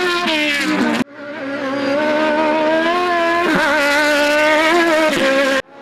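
Engine of a Mini-bodied off-road rally car running hard at high revs on a dirt course, with a brief dip and wobble in pitch around the middle. The sound breaks off abruptly twice, about a second in and near the end, fading back in each time.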